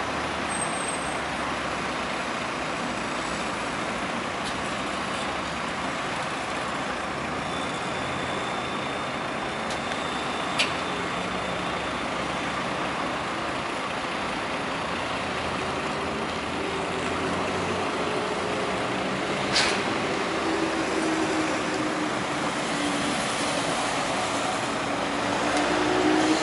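Steady road traffic noise. In the second half a vehicle engine drones, its pitch slowly drifting, and two sharp knocks stand out, about ten and twenty seconds in.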